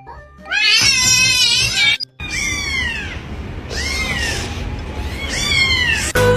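A domestic cat yowling in one long wavering call, then, after a sudden cut, a cat meowing three times, each meow falling in pitch.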